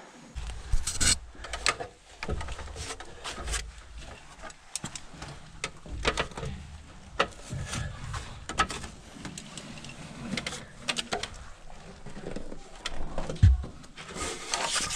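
Irregular knocks, scrapes and clatter of someone climbing down a wooden ladder: boots and gloved hands on the timber rungs, with gear rustling, and a heavier thump near the end.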